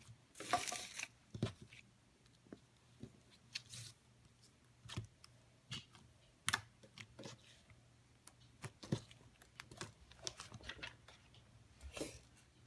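Slime being squished and stretched by hand: irregular sharp clicks and pops of trapped air, with a longer crackly stretch just after the start and another near the end.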